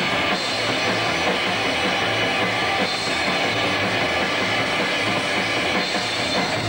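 Rock band playing live, the drum kit to the fore, with no break in the music.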